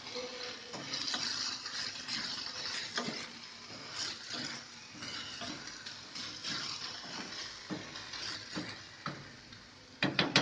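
A spatula stirring and scraping chopped cabbage and onion-tomato gravy in a non-stick frying pan over a gas flame, the food sizzling lightly. Near the end, a few quick sharp knocks.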